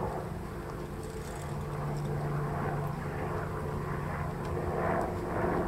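A steady engine drone, strongest through the middle.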